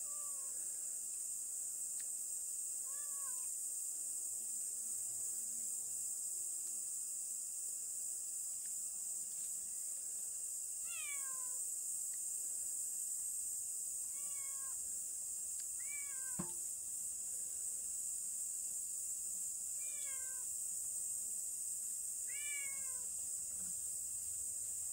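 A domestic cat meowing repeatedly, about seven meows that each fall in pitch, spaced a few seconds apart. A steady high hiss of insects runs underneath.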